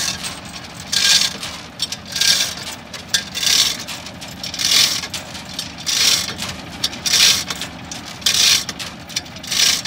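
Rhythmic scraping strokes, about eight of them, one every second or so, over a steady low engine hum.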